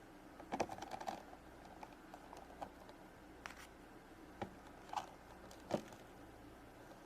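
Small plastic clicks and taps as tiny Shopkins figures are handled and put into a plastic toy vending machine: a quick run of clicks about half a second in, then single taps every second or so.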